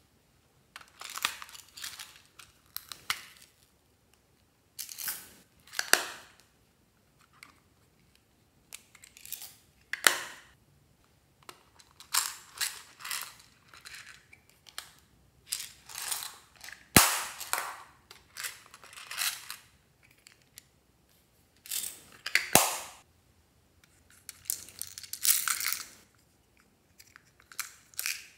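Small plastic toy containers being handled and snapped open, and beads, buttons and sprinkles rattling out of them into a dish of slime, in short crackling bursts every second or two. Two sharp plastic snaps come in the second half.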